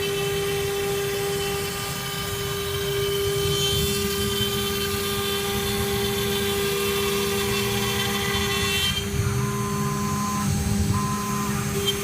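CNC router spindle running steadily with a constant whine while it cuts sheet material, over the rumble of the machine. Two brief higher tones come near the end.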